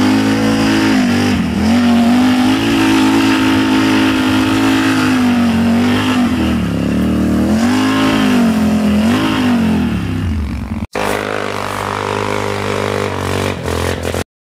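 ATV engine heard from right beside its exhaust tips, revving up and down so that its pitch rises and falls repeatedly as it rides. About eleven seconds in, the sound cuts to an ATV engine running at a steadier pitch, which stops abruptly near the end.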